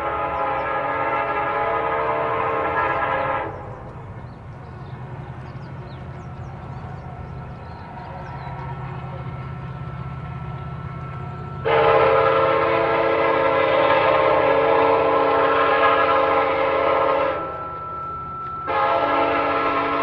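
Train passing, its locomotive horn sounding long blasts of a many-toned chord over the train's steady low rumble. One blast cuts off a few seconds in, a longer one starts a little past halfway, and after a short break another begins near the end.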